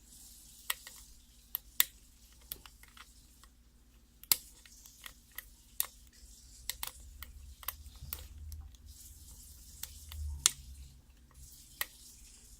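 Lock pick and tension wrench working the pins in the keyway of a six-pin Master Lock lockout-tagout padlock during single-pin picking: scattered sharp clicks at an irregular pace.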